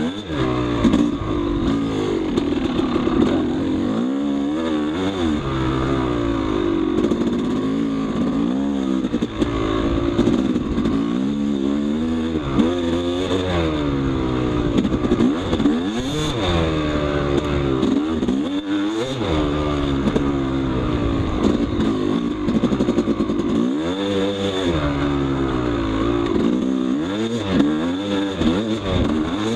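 Yamaha YZ250 two-stroke dirt bike engine under way, its pitch rising and falling every second or two as the throttle is worked on and off.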